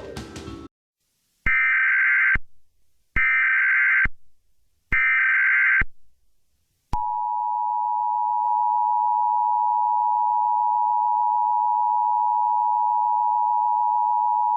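Emergency Alert System broadcast sequence. Music cuts off just after the start, then come three short buzzy SAME header data bursts about 1.7 s apart. About 7 s in, the steady two-tone EAS attention signal starts and holds, announcing a child abduction (Amber) alert.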